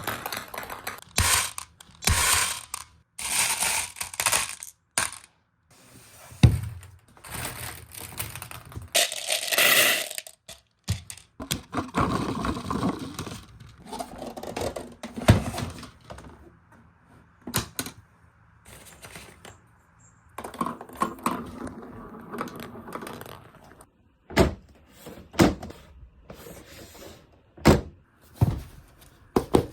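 Many balls, marbles and ping pong balls, rolling and clattering through a handmade marble run: a busy stream of sharp clicks and knocks, with stretches of continuous rolling noise.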